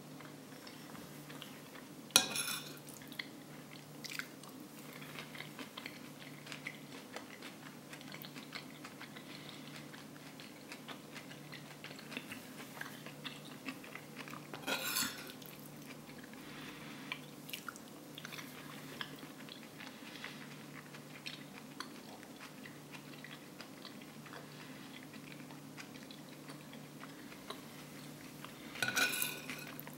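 A metal spoon clinks and scrapes against a plate while curry and rice are scooped up, louder about two seconds in, midway and near the end, with quiet chewing and small clicks in between. A faint steady low hum runs underneath.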